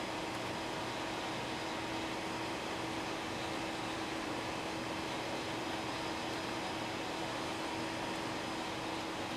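Steady fan-like hum and hiss with a low constant tone, unchanging throughout.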